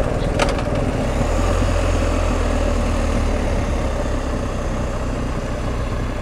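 BMW R1250 GS Adventure's boxer-twin engine running steadily, with a brief click about half a second in.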